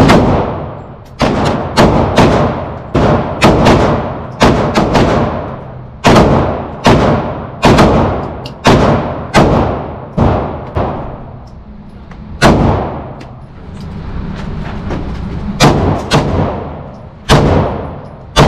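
About two dozen handgun shots fired in irregular strings at an indoor shooting range, each sharp crack followed by a short echo off the range walls. A gap of a few seconds a little past halfway, then the firing resumes.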